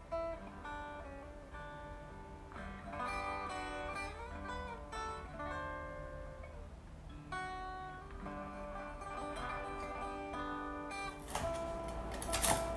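Acoustic guitar background music. About eleven seconds in, a knife starts chopping crispy fried pork skin on a wooden cutting board, a run of sharp crunchy cuts over the music.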